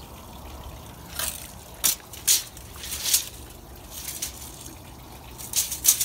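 Footsteps scuffing on dry ground, about seven short irregular steps, over a faint low steady hum.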